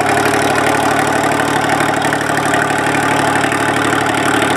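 Chamberlain Super Ninety tractor's turbocharged two-stroke GM Detroit Diesel engine idling steadily.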